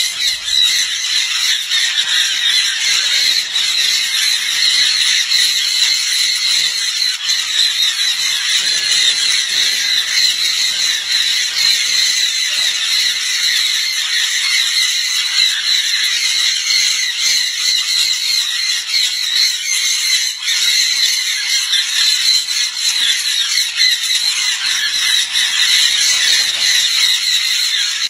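Many sun and jenday conures screeching at once: a loud, unbroken din of shrill, high-pitched calls.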